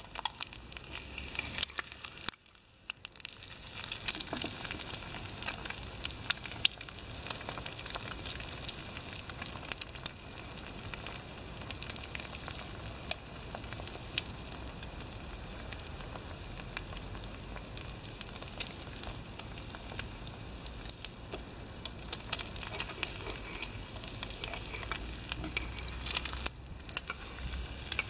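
An egg frying in a small nonstick pan on a wood-fired rocket stove, sizzling steadily with many small crackles and pops. The sound drops out briefly about two and a half seconds in.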